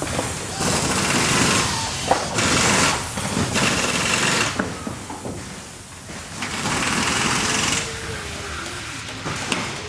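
Factory machinery ambience: machines running with repeated bursts of hissing, each about a second long, among clicks and knocks, and a faint wavering tone in the second half.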